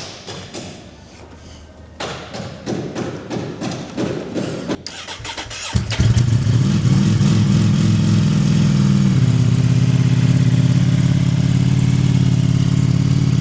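Ducati Streetfighter V4's 1103 cc V4 engine being cranked by its starter for a few seconds, then firing about six seconds in and settling into a steady idle that steps down slightly a few seconds later. It is the first start after the engine was refilled with oil, and it runs fine.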